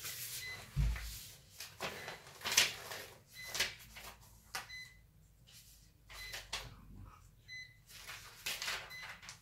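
Paper rustling as the pages of a booklet are handled and turned, with short high electronic beeps recurring about every second and a half.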